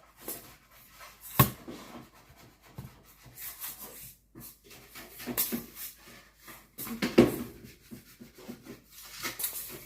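Kitchen handling noises: a few sharp knocks, with rubbing and scraping between them.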